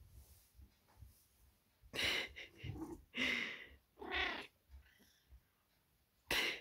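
Maine Coon cat giving a string of about five short meowing chirps, starting about two seconds in, while her chin is scratched.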